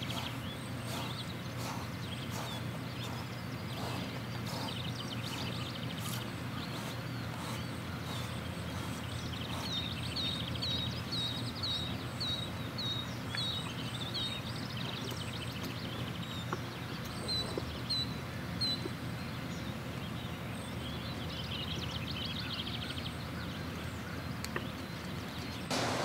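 Pasture ambience: small birds singing, including a run of about ten short, evenly repeated chirps in the middle, over a steady low hum. A scatter of soft clicks comes in the first several seconds.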